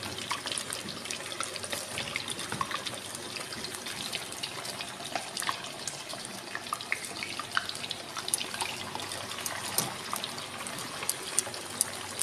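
Round potato slices deep-frying in hot oil in a pan: a steady sizzle with many small crackles and pops.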